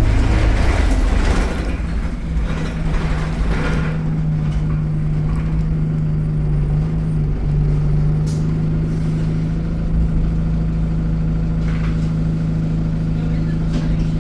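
Diesel engine of a single-deck bus idling, heard from inside, with a steady low hum that holds its pitch. For the first four seconds a rush of noise like released compressed air sounds over it. There are sharp clicks about eight and twelve seconds in.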